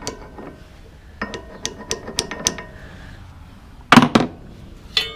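Metal-on-metal work on a wood chipper's pulley and shaft: a quick run of light metallic clicks, ratchet-like, with a ringing tone from the metal, followed by a loud clank about four seconds in and another sharp knock near the end.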